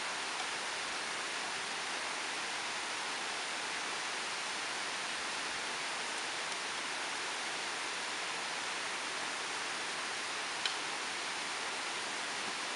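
Steady, even hiss of background noise with one faint short click about ten and a half seconds in.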